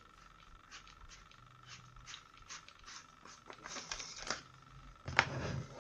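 The plastic screw-on back cap of a Hunter Node-BT battery irrigation controller being unscrewed by hand: a run of small clicks and scrapes as it turns, getting louder, then a louder scraping clatter about five seconds in.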